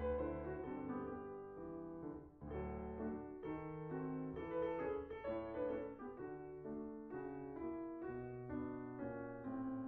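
Background piano music: a steady run of notes and chords.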